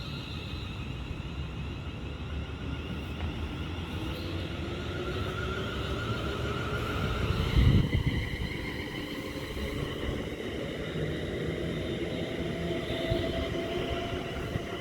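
Class 350 electric multiple unit train passing through the station with a steady electric whine. About halfway through the whine's pitch shifts and there is a short loud rush of air. Afterwards a lower whine climbs steadily in pitch.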